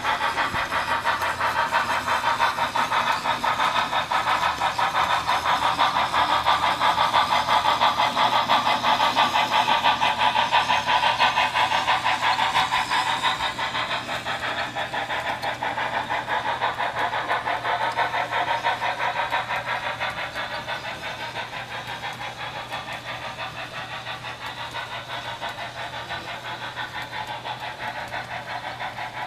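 Model D&RGW L-131 steam locomotive running on a model railway layout, with a fast, even chuffing rhythm. It grows quieter about halfway through and again near the end as the engine draws away.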